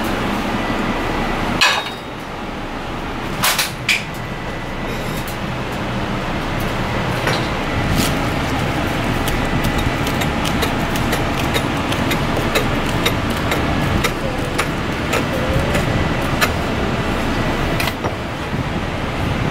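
Kitchen knife chopping green leaves on a cutting board: many quick, irregular taps of the blade against the board over steady kitchen background noise. A few louder knocks come in the first four seconds.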